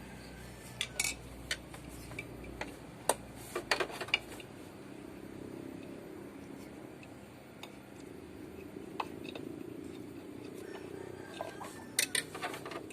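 Scattered small metallic clicks and clinks of tools and parts being handled, in clusters about a second in, around three to four seconds in, and near the end. No horn sounds.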